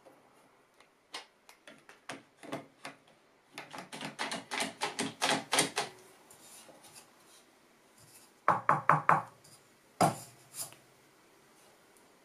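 One-handed quick-grip bar clamp being ratcheted tight on a wooden guide block: a fast run of clicks as its trigger is squeezed, a burst of about five louder clicks later, and a sharp knock of wood about ten seconds in.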